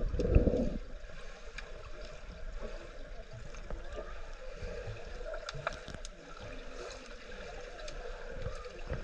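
Underwater sound picked up by a camera held below the surface: muffled water noise with scattered small clicks and knocks, and a louder low rush in the first second.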